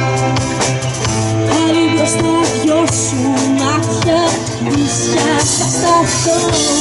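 Live pop-rock band playing: a woman sings the lead melody over electric guitars, bass and a drum kit, with the drums keeping a steady beat.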